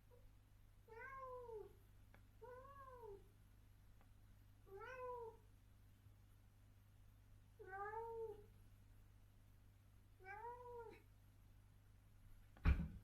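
Adult female cat meowing five times, a few seconds apart, each meow rising and then falling in pitch. A single sharp knock near the end is the loudest sound.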